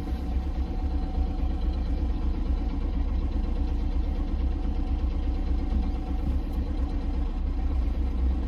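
Steady low engine and road rumble inside a truck cab while driving.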